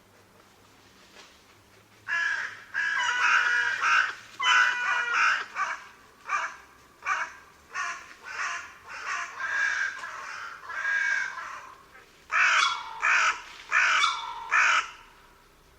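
Carrion crow cawing: after about two seconds of quiet, a long string of harsh caws, a short pause, then a few more caws near the end.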